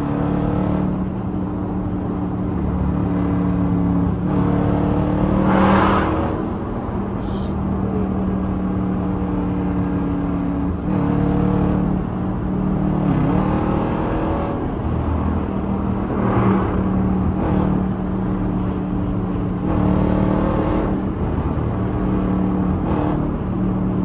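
Jeep's 5.7-litre HEMI V8 cruising at freeway speed, heard from inside the cabin: a steady engine drone under tyre and road noise, swelling briefly a few times.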